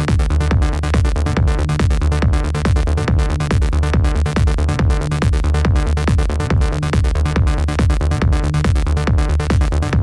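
Electronic background music with a steady, driving beat.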